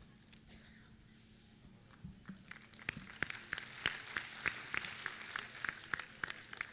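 Applause, many hands clapping, starting about two seconds in after a near-silent pause and building to a steady patter.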